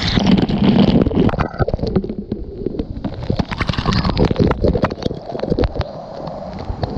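Water sloshing and gurgling close to the microphone, with many short knocks and splashes and a muffled sound while swimming in the waterfall's pool.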